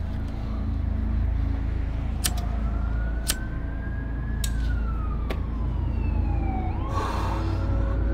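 A siren wailing, its pitch rising slowly and then falling over several seconds, over a steady low rumble. A few sharp clicks of a lighter come as a cigarette is lit, and a short rush of noise follows about seven seconds in.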